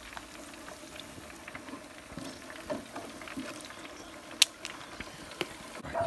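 Hot oil in a turkey fryer bubbling and crackling as oil drips back into it from the freshly fried turkey draining in its wire basket. A sharp click comes a little past four seconds in.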